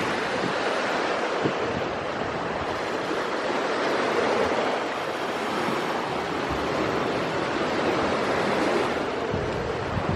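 Surf: waves washing in, a steady rush that swells and eases every few seconds, with wind buffeting the microphone.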